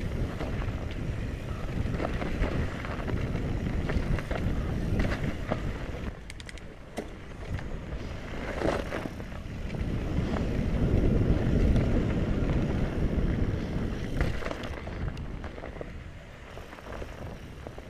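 Mountain bike riding down a snowy trail: a steady rush of wind buffeting the microphone, with the bike's rattles and knocks over bumps, easing off near the end.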